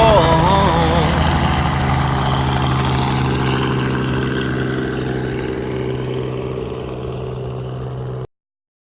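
Helicopter engine and rotor running steadily, slowly fading out and then cut off abruptly about eight seconds in.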